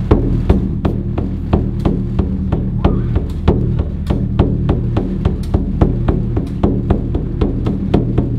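Background music with a steady percussive beat, about two strong drum hits a second with lighter taps between, over held bass notes.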